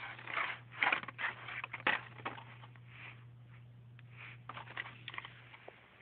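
Blister-carded Hot Wheels cars being shuffled and handled in a display box: irregular rustling and clicking of plastic packs and card, busiest in the first two seconds, over a steady low hum.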